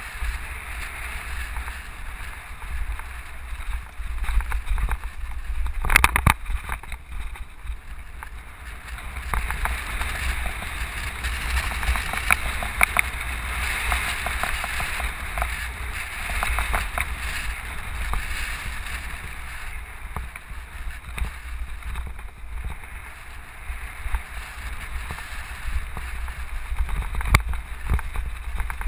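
Motor vehicle driving slowly along a rough dirt road, heard from inside the cabin: a steady low rumble with road hiss and scattered rattles. Two sharp knocks stand out, about six seconds in and near the end, from bumps in the road.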